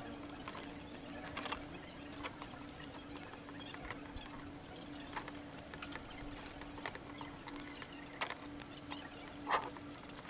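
Scattered light clicks and taps as bolts are fitted by hand into a plastic motorcycle mudguard and its metal brackets, the loudest click near the end, over a faint steady hum.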